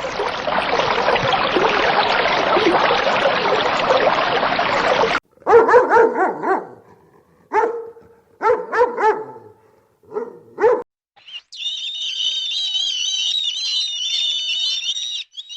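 A dense noisy din for about five seconds, then a dog barking, a string of short barks with gaps between them. For the last four seconds comes a high, warbling chirping call.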